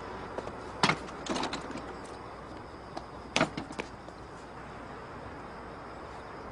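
A few short scuffing steps on hard ground: one about a second in, a small flurry just after, and another short flurry about three and a half seconds in, over a steady low background hiss.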